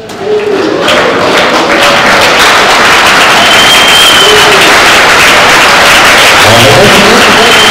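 A roomful of guests clapping and cheering, rising quickly just after the start and staying loud throughout. There are a few shouts and a high whistle twice, once around the middle and once near the end.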